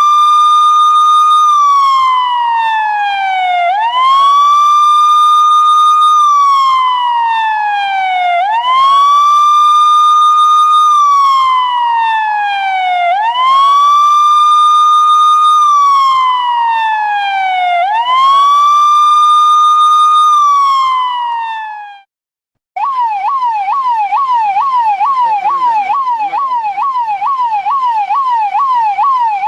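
Indian police siren wailing: each cycle rises quickly, holds its top pitch for a moment, then slides down over about three seconds, repeating five times. It cuts out briefly, then switches to a fast yelp of about two to three sweeps a second.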